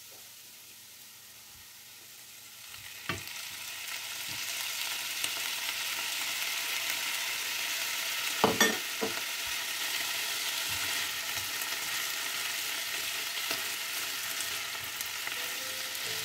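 Potatoes and onion frying in a non-stick pan: a steady sizzle that grows louder a few seconds in as salted volnushka mushrooms go in, with a few sharp knocks against the pan around the middle.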